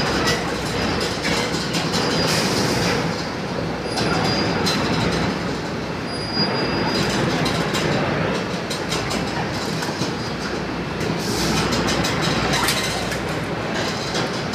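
Machinery of an automatic chicken slaughtering line running steadily: the overhead shackle conveyor and processing equipment make a continuous clattering din, with scattered metallic clicks.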